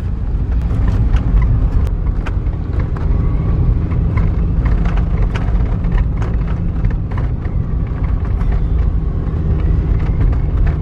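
Car engine and tyre rumble heard from inside the cabin of a car driving along a country lane, steady throughout, with many short clicks scattered over it.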